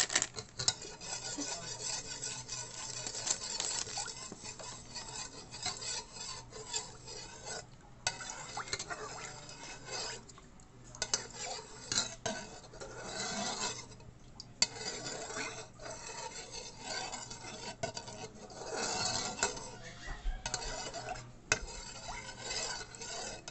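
Metal spoon stirring water in an aluminium pot, scraping and clinking against the sides and bottom, to dissolve gulaman (agar) powder. The stirring stops briefly a few times.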